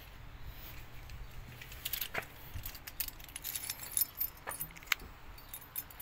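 A bunch of keys jangling in a hand, light high jingles with a few sharp clicks, busiest from about two seconds in.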